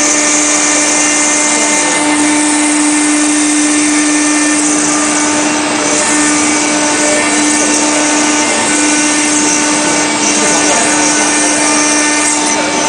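CNC router spindle running steadily as its bit carves a marble slab: a constant hum over the hiss of the cutter grinding stone.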